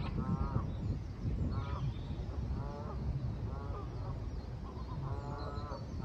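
Geese honking from the water, repeated short calls about once a second, over a steady low rumble.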